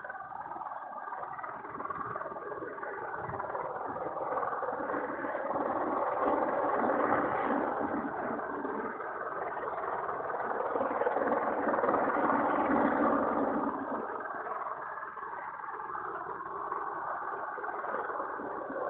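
Helicopter hovering, a steady rotor and engine drone that swells louder through the middle and eases off again near the end.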